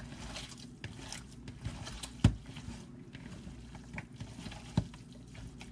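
Bare hands squishing and kneading a wet meatloaf mixture of raw ground beef, tomato and bread in a plastic bowl, in small irregular squelches, with two louder thumps, one a little past two seconds in and one near the end.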